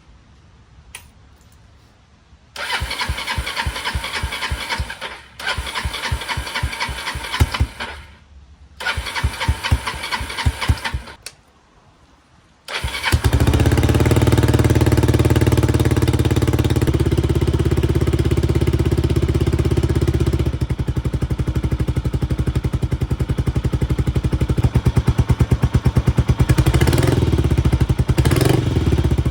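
Kawasaki 250TR's single-cylinder four-stroke engine being turned over on the starter in three cranking attempts, then firing on the fourth about 13 seconds in and running steadily at idle, with two short blips of the throttle near the end. The engine has a freshly overhauled carburetor, fitted to cure its stalling.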